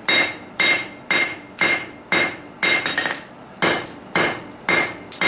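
Blacksmith's hammer striking a steel vise jaw insert on an anvil in a steady rhythm, about two blows a second, each with a short metallic ring, knocking down the insert's teeth.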